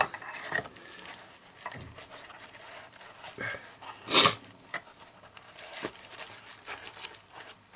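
Rustling, scraping and light knocks from a small wooden-handled hammer being worked into the elastic loop of a fabric zippered tool pouch, with one louder scrape about four seconds in.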